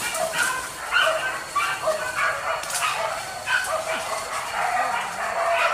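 Several hunting dogs yelping and barking, short high calls overlapping several times a second.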